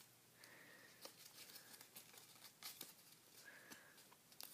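Faint rustling and crinkling of paper being folded and creased by hand, with scattered soft ticks.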